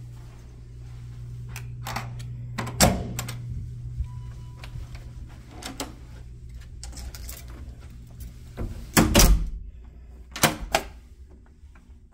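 Hotel room door being unlocked and opened: handle and latch clicks, a short electronic beep from the key-card lock about four seconds in, and heavy door thuds, the loudest about nine seconds in. Two sharp metal clacks of the swing-bar door guard come near the end, over a steady low hum that fades after the loudest thud.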